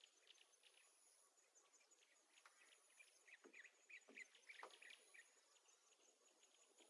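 Faint birdsong with insect trills: many short bird chirps and a few falling calls, under a thin, high insect trill that comes and goes in stretches of about a second.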